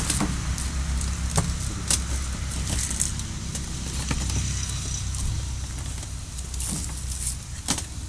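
Low steady hum of an idling vehicle engine, with a few sharp light clinks and taps as glass medicine vials, syringes and plastic cases are handled.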